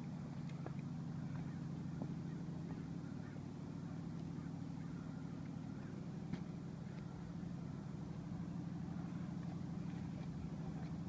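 A machine running with a steady low hum, with a few faint clicks and knocks over it.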